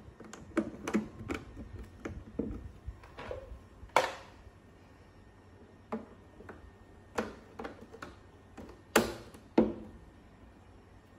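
Plastic decorative trim strips being pressed and snapped onto the top rim of a modular plastic planter: a series of irregular plastic clicks and taps, the two loudest about four and nine seconds in.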